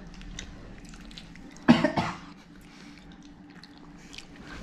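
A person coughs once, sharply and in two quick parts, under two seconds in, over faint chewing and mouth sounds.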